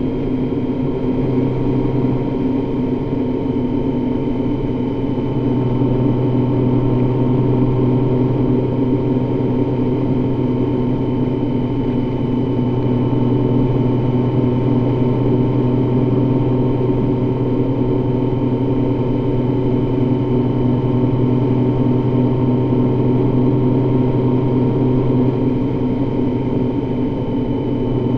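Honda Gold Wing motorcycle cruising on the highway: a steady engine drone with rushing wind noise over it, the lowest note growing a little stronger about five seconds in and holding.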